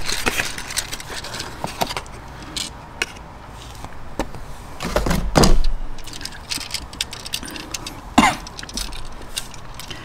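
Packaging of a new GFCI receptacle being opened and the receptacle handled and lifted out: crackling plastic, scattered clicks and rustles, with a louder clatter about five seconds in.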